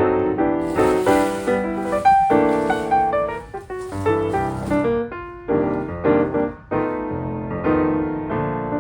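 Background music led by piano, a melody of short, note-by-note chords, with a soft high hiss over the first half.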